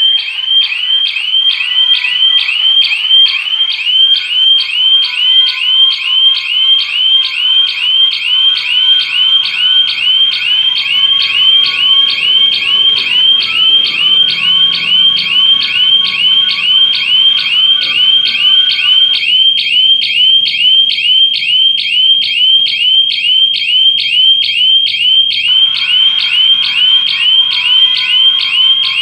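Electronic burglar-alarm siren sounding without a break, a rapid warbling tone repeating about three times a second, set off by a detected security breach from the shutter being forced open. A fainter lower tone runs beneath it and drops out for several seconds after the middle.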